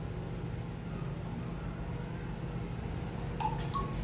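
Steady low background rumble, with a few short high notes about three and a half seconds in.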